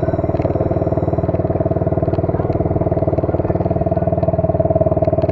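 125cc ATV engine running at a steady, even pace while riding, with a few faint clicks over it.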